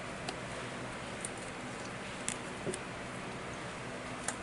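A few faint, short clicks and taps of a tarot card being handled and laid down on a table, over a steady background hiss.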